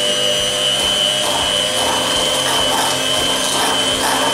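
Electric hand mixer running steadily on its slow setting, its beaters whipping chilled fresh cream and powdered sugar in a steel bowl, with a steady motor whine.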